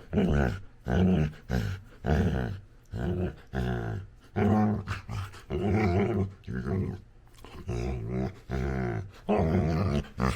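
Labrador puppy play-growling: a long run of short, low growling grunts, about two a second with brief pauses between groups, likened to a dirt bike.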